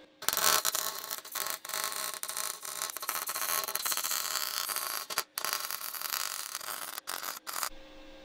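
MIG welder arc crackling as a bead is laid on square steel tube. It starts just after the beginning, breaks off briefly a little past the middle and twice more near the end, then stops.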